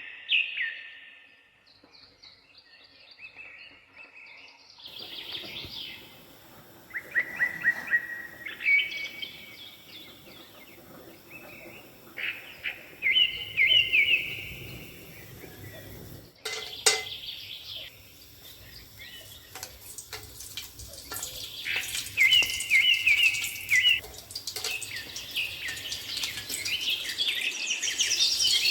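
Birds singing and chirping in short, quickly repeated trills, over a background hiss that grows louder near the end.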